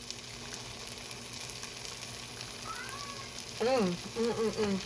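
Cheese and pickles sizzling as they fry in a chaffle maker: a steady crackling hiss with fine pops. A person's voice hums briefly near the end.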